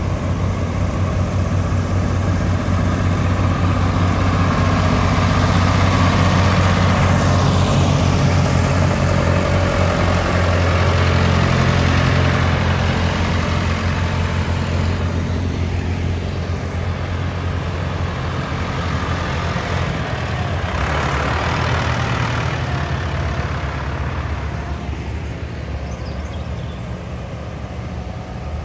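A line of vintage farm tractors driving past one after another, their engines running low and steady, swelling and fading as each goes by.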